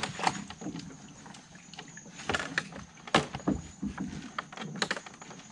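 Water splashing and sloshing with irregular knocks and rattles from the bamboo poles of a fish trap being handled and untied; the sharpest knocks come about three seconds in and again near the end.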